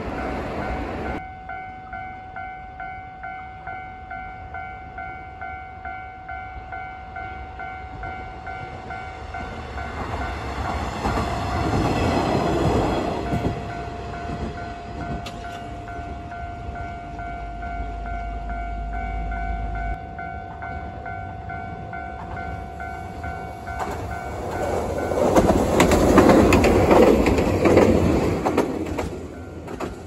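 Japanese railway level crossing alarm ringing, an electronic ding repeating evenly. It starts about a second in and stops about 24 s in. A train rumbles past around 12 s in, and a tram passes, louder, near the end.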